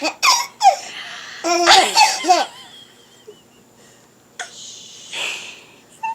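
A baby laughing in two bouts of high, wavering belly laughs in the first two and a half seconds, then short, quieter breathy sounds.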